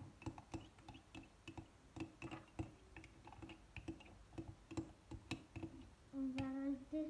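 Spoon clicking and scraping against the inside of a ceramic mug as thick dish-soap-and-salt slime is stirred, in quick irregular taps. About six seconds in, a child's voice starts a brief held pitched sound.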